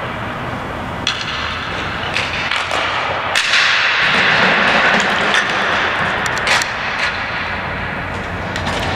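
Ball hockey play: several sharp, echoing cracks of sticks striking the ball and the ball hitting the boards, with a louder stretch of general game noise in the middle.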